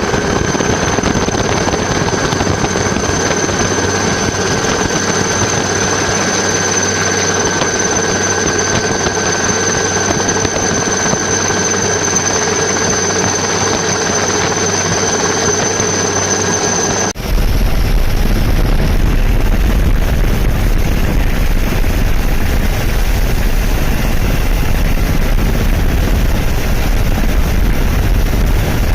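Helicopter engine and rotor noise, a steady drone with a high whine over it. About 17 seconds in it cuts suddenly to a louder, deeper rumble without the whine.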